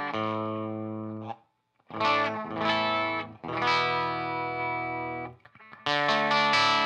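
Electric guitar chords played through a small tube amp with an overdrive pedal, a lightly distorted tone: a 1964 Gibson ES-335 through a 1973 Fender Champ and a Way Huge Green Rhino. Chords ring out and are cut off a little over a second in, then after a brief silence new chords are struck and left to ring, and near the end strumming starts again.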